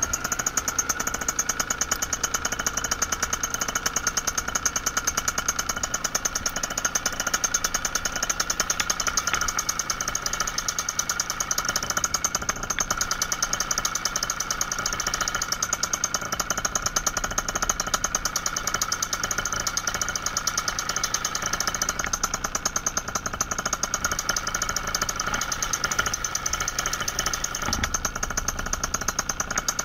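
Paramotor engine running steadily at a constant speed, a fast even pulsing that neither rises nor falls.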